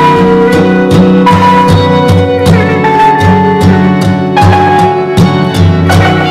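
Background music: a steady drum beat under a melody of long held notes.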